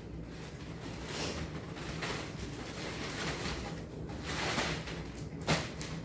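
Soft rustling and handling noise of items being moved about, with a single sharp knock about five and a half seconds in.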